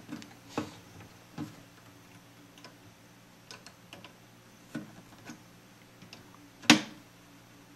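Scattered small clicks and taps of hands handling a capacitor's wire leads and parts against the metal chassis of a tube radio receiver, about ten in all, with one sharper, louder click near the end.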